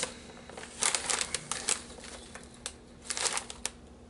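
Plastic crisp bag crinkling in several short bursts as it is handled, just after being opened.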